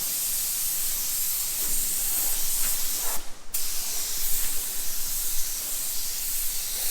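Paint sprayer hissing steadily as black paint is sprayed onto a slowly rotating wooden-spoked wheel. The spray stops briefly about three seconds in, then starts again.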